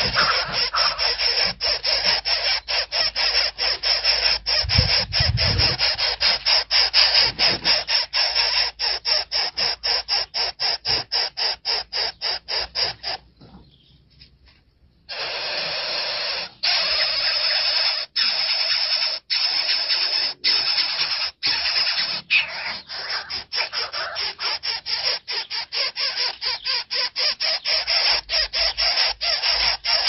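Nestlings' harsh, raspy begging calls, repeated rapidly about three times a second, stopping for about two seconds midway and then resuming.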